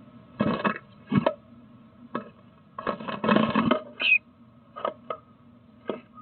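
Scratching, scrabbling and light knocks against a wooden nest box, in uneven bursts, typical of a bird gripping and shifting at the box and its entrance hole. A single short chirp about four seconds in, over a steady faint electrical hum from the camera.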